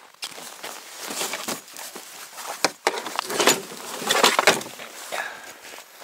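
Footsteps crunching in snow, a string of uneven steps.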